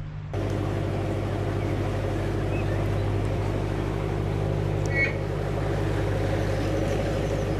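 Narrowboat engine running steadily while cruising, an even low throb. A brief high chirp sounds about five seconds in.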